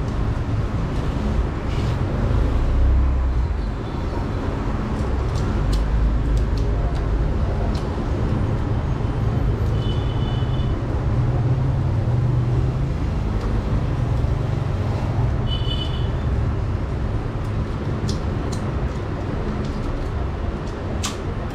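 Steady low rumble of road traffic, with scattered light clicks of tools and parts being handled and two short high-pitched chirps, the first a little under halfway through and the second about two-thirds through.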